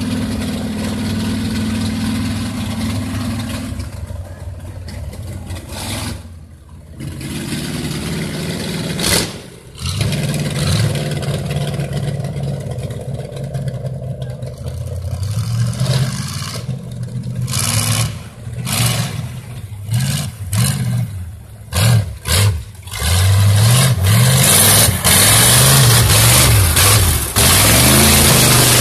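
Modified off-road trucks' engines running and revving hard, the pitch rising and falling again and again, in quick repeated blips in the second half. The loudest stretch, near the end, is the modified Geo Tracker revving high as it pushes through mud.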